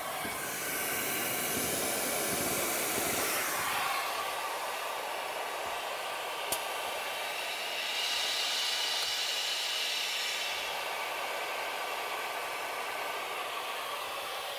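Compressed air hissing steadily out of the MAN TGL lorry's air system, swelling twice, with one sharp click about halfway through.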